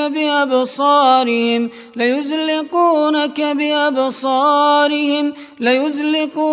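A man reciting the Quran in a slow, melodic chant, holding long ornamented notes, with breaks for breath about two seconds in and again near the end.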